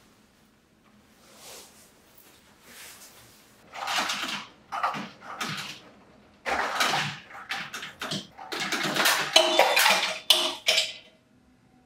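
Ice cubes dropping from a water purifier's ice dispenser and clattering into a cup, some bouncing out, in several bursts starting about four seconds in.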